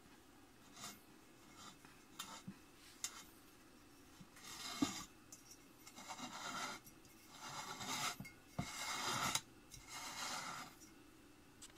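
Fingertips rubbing across a chrome-plated metal surface in about five short, rough strokes, starting about four seconds in, after a few light ticks.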